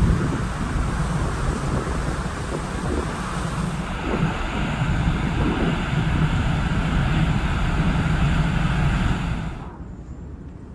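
Wind buffeting the microphone over the rush of the ferry's bow wave on the open deck. About four seconds in it turns to a steadier mechanical rushing hum beside the ship's funnel and vents. Near the end it drops suddenly to a much quieter steady hum.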